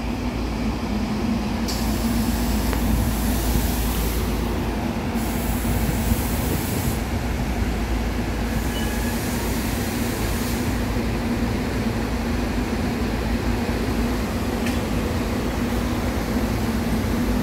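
SEPTA Silverliner IV electric commuter train arriving at the station and rolling past, a steady rumble with a constant low hum.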